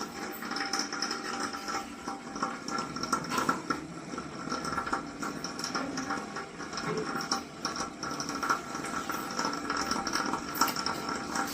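Bajaj New Shakti electric water heater (geyser) heating water with an irregular crackling and clicking over a steady thin tone. This is the faulty sound of its heating element, which is heavily caked with scale and shows intermittent continuity.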